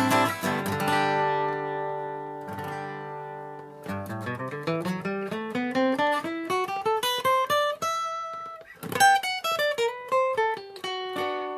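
A 1975 Yamaha FG-150F acoustic guitar is played. A strummed chord rings and dies away, then a run of single picked notes climbs steadily upward. After a held note, more picked notes follow.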